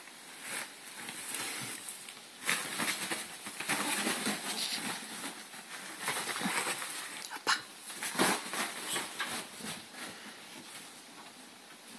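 A ferret scampering and hopping about on a duvet: irregular rustling of the bedding and soft patter of paws, with a few sharper knocks about eight seconds in.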